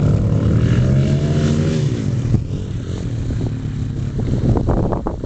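Dirt bike engine running hard, its pitch dropping as it eases off about two seconds in, then running more quietly. Wind buffets the microphone near the end.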